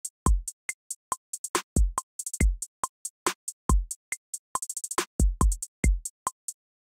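Drum machine trap beat at 140 BPM from Maschine: kicks with long booming low tails, a steady click on each beat, and hi-hats played in with note repeat, including fast hi-hat rolls. The beat stops about half a second before the end.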